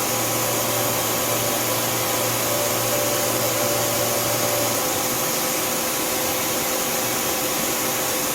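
Tsugami S206 CNC Swiss lathe's back spindle running at 7,000 RPM, a steady low hum over the machine's even whir. The hum stops abruptly about five seconds in, while the whir carries on.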